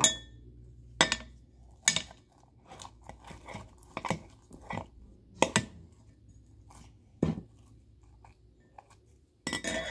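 Plastic spoon knocking and scraping against a plastic bowl while working slime: scattered sharp clicks and taps, roughly one every second or two, with a louder rustling sound starting just before the end.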